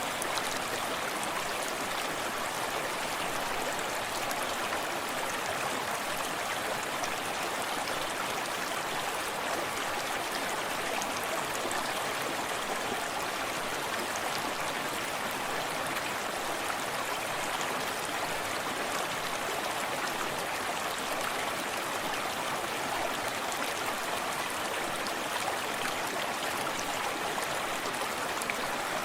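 Small forest stream running steadily over rocks, a constant rush of flowing water with fine splashing and burbling.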